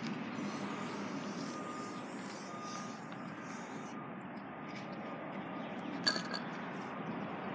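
Aerosol spray paint can hissing for about four seconds, then stopping, with a single sharp click about six seconds in.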